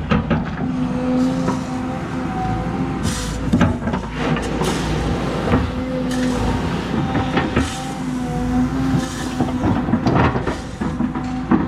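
Excavator working at close range: diesel engine running under a hydraulic whine that comes and goes as the arm moves. Frequent knocks and rattles come from the bucket working gravel.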